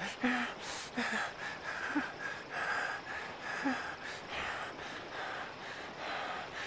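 A man breathing hard in quick, noisy breaths, about two a second, through an open mouth, with a few short low grunts in his throat.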